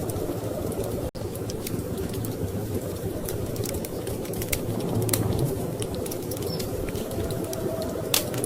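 Wood fire crackling in a fireplace, with scattered sharp pops, over a steady low rumble of storm wind. The sound cuts out for an instant about a second in.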